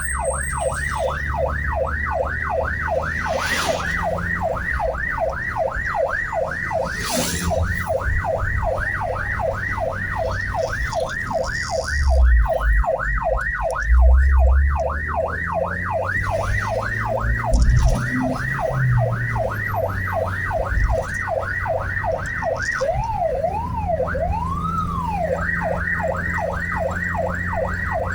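Electronic siren of an emergency transport vehicle on fast yelp, about three to four rising sweeps a second, switching near the end to a few slower wails before going back to the yelp. Engine and road rumble run underneath, with a few low thumps around the middle.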